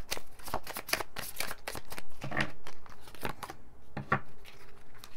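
Tarot cards being shuffled by hand: a quick, uneven run of card flicks and slaps.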